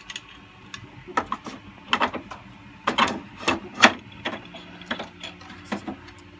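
3D-printed plastic parts of a droid body being handled: irregular clicks, taps and short scrapes as the round shoulder plate and its pin are turned and seated in the printed body. The loudest knock comes about two-thirds of the way through.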